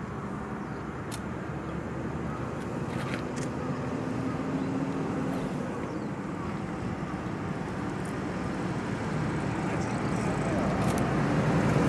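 A train approaching along the line: a steady rumble that grows steadily louder, with a few faint clicks.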